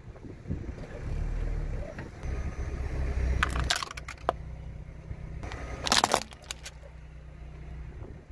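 Car tyre rolling slowly over plastic toys on asphalt, with a low engine rumble and sharp cracks of plastic breaking: a quick cluster about three and a half seconds in and the loudest snaps about six seconds in.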